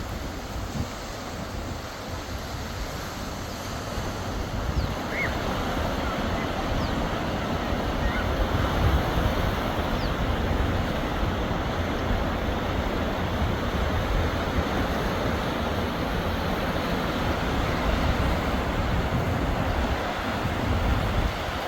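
Sea waves washing onto the shore in a continuous surf noise, with wind buffeting the microphone as a low rumble; it grows louder a few seconds in.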